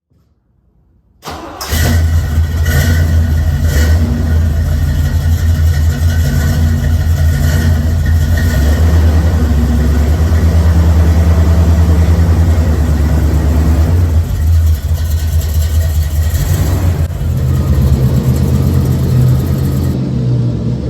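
A C3 Corvette's swapped-in LT1 V8 starting up about a second in, catching at once, then running at a loud, steady idle with a few level changes later on.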